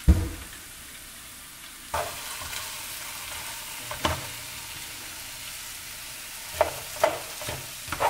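Potato slices frying in a pan of spiced oil with a steady low sizzle, while a spatula stirs and turns them, knocking against the pan now and then and several times in quick succession near the end. A loud thump comes at the very start.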